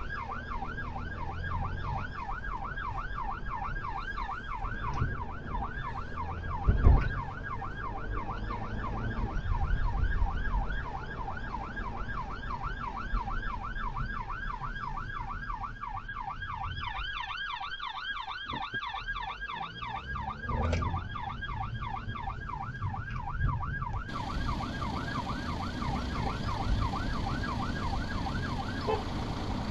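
Emergency response car's siren on a fast yelp, about three up-and-down sweeps a second, heard from inside the cabin over engine and road noise, with a single loud thump about seven seconds in. Near the end the siren switches to a slower rising wail.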